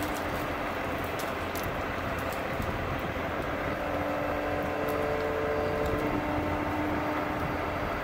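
Crane's engine and hydraulics running steadily as the boom and Cut-n-go head work in the treetop, with a hum whose held pitch shifts a couple of times as the load changes. Faint scattered clicks sound over it.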